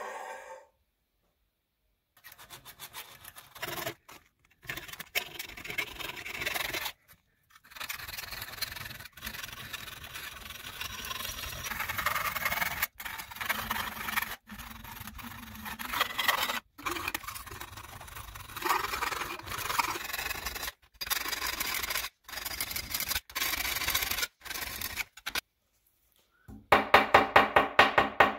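A metal blade scraping back and forth across a rusty steel handsaw plate, in several short stretches broken by sudden cuts. Near the end, quick, evenly spaced hammer taps on the steel saw blade begin.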